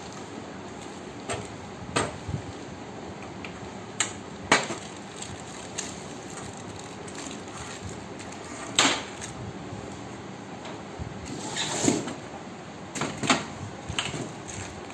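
Handling noise from a glass-top two-burner gas cooktop with a steel body being lifted, turned over and unpacked: scattered knocks and clicks, half a dozen or so, over a steady background hiss.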